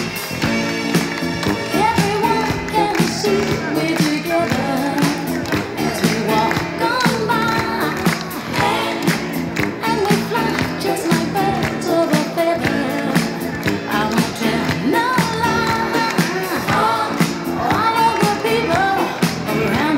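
A pop song with a lead singer and full backing band, playing loud and steady.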